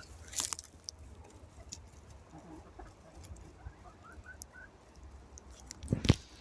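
Chickens clucking softly in short, rising notes while pecking at food, with scattered light taps. Near the end there is a single loud thump.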